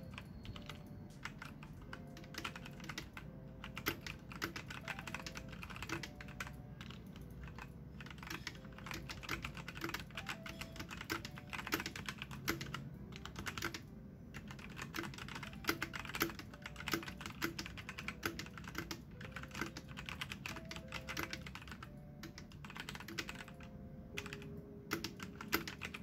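Fast, continuous typing on a Machenike K500 mechanical keyboard: a dense run of key clicks with a few brief pauses.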